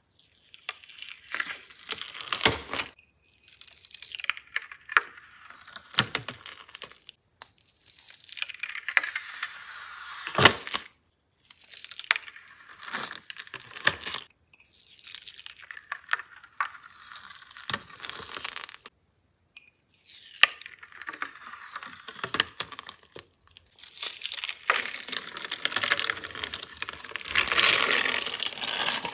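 Crackly tearing and crinkling of a thin glitter-coated film as it is peeled off a hard plastic heart-shaped mold, with sharp little snaps. It comes in several short takes separated by brief gaps, and the last stretch is the densest and loudest.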